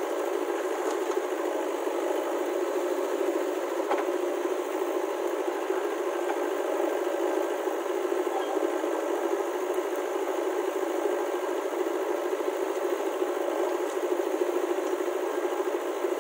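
JCB 3DX backhoe loader's diesel engine running steadily while it works the backhoe arm, loading mud into a tractor trolley.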